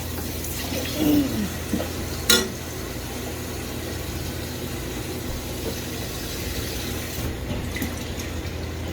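A steady rushing noise with a low hum underneath, and one sharp clack about two seconds in.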